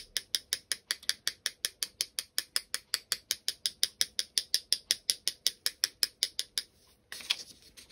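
Paintbrush handle tapped rapidly and steadily against the handle of a second brush, about six sharp taps a second, stopping near the end. The tapping flicks watered-down white paint off a fan brush as splatters.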